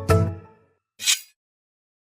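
The last notes of a marimba-like phone ringtone ringing out and fading away, followed about a second in by a brief whoosh, then silence.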